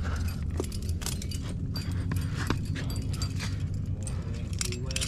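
Metal climbing gear on a harness rack clinking, carabiners and cams knocking together in quick, irregular clicks, over a steady low rumble.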